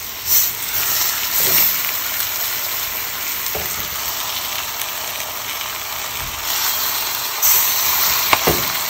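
Marinated chicken leg quarters sizzling in hot oil as they are laid onto sautéed onions in a stainless steel pot. The steady sizzle flares up louder a few times, with a few faint knocks of the meat against the pot.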